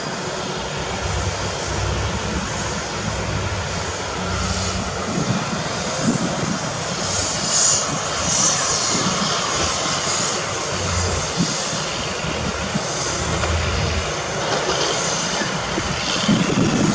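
Diesel engines of heavy earthmoving machinery (excavators and dump trucks) running steadily, a low engine hum under a constant rushing noise.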